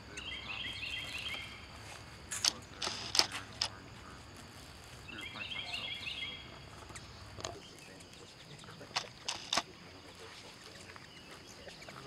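A songbird sings a short phrase of quick repeated notes twice, about five seconds apart. Several sharp clicks fall between and after the songs, the loudest around three seconds in.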